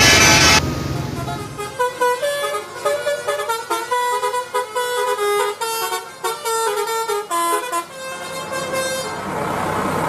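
Telolet horn on a tour bus: a loud multi-tone horn blast that cuts off about half a second in, then the horn plays a quick tune of short stepping notes for about seven seconds. A bus engine idles as the tune ends.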